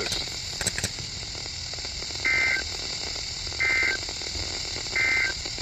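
Three short bursts of NOAA Weather Radio SAME digital data, a screechy two-tone warble, about a second and a half apart: the end-of-message code that closes the weekly test broadcast. A steady radio hiss runs underneath, with a few clicks near the start.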